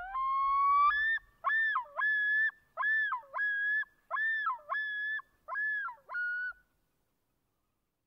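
Common loon giving its yodel call: a long rising note, then four repeated two-part wailing phrases, each note swooping down and back up.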